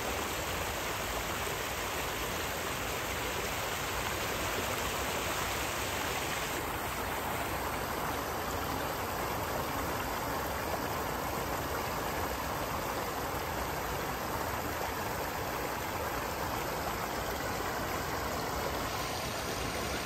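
Steady rush of a shallow river flowing over rock ledges.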